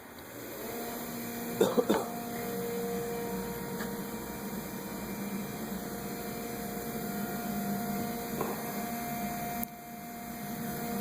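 A steady electrical hum of a few fixed pitches, with short clicks and rattles about two seconds in and again near the end.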